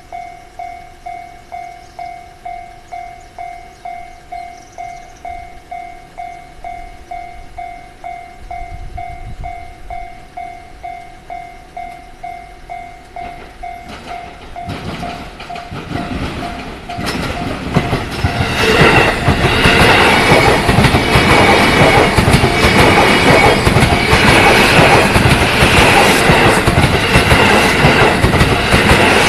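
Japanese railway level crossing warning bell ringing steadily, about two strokes a second. About halfway through, a train approaches and then passes over the crossing loudly, its wheels clattering over the rail joints and drowning out the bell.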